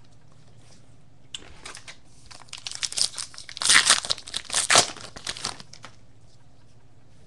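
The shiny foil wrapper of a baseball card pack being torn open and crinkled in the hands. A run of crackling and tearing starts about a second and a half in and lasts about four seconds, loudest in the middle.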